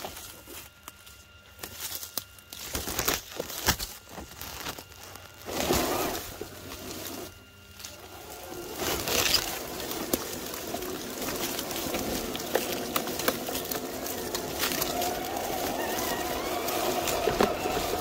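Traxxas TRX-6 RC crawler driving through brush: its electric motor and gears whine while leaves and twigs scrape and crackle against the body. For the first several seconds it stops and starts. From about nine seconds in it runs steadily, with a faint wavering whine.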